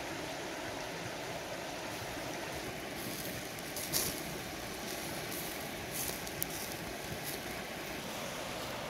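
Wood-ember fire under ducks roasting on bamboo skewers, giving a few sharp crackles and pops against a steady rushing background. The loudest pop comes about four seconds in, with a few more around six seconds.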